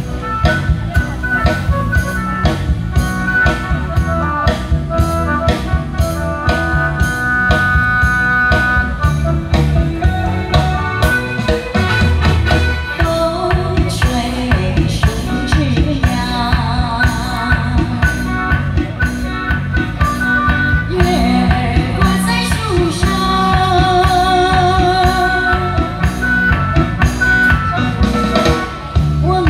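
A woman sings a song into a handheld microphone over amplified music with a steady drum-kit beat.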